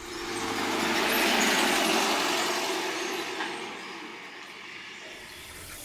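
A motor vehicle passing on the street: a wide rush of engine and tyre noise that builds over about a second, then fades away by about three and a half seconds in, leaving a low steady hiss.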